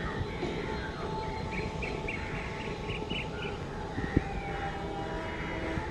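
Birds chirping in short bursts over steady outdoor background noise, with a train approaching in the distance. A single sharp click about four seconds in.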